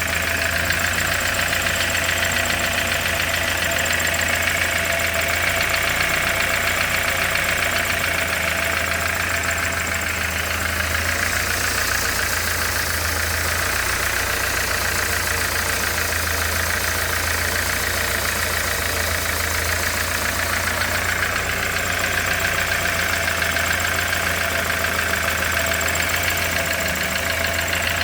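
Opel Omega's C20NE 2.0-litre four-cylinder petrol engine idling steadily, with a fast repetitive knock running under the idle, a knock whose cause the owner is asking about.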